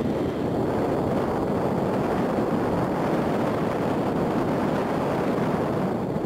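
Four-engined Airbus A380 jet airliner on final approach just before touchdown, its engines giving a steady, even roar that neither rises nor falls.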